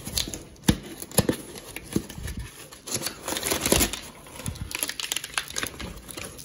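Crumpled brown kraft paper packing liner crinkling and rustling as it is handled and lifted, with irregular sharp crackles.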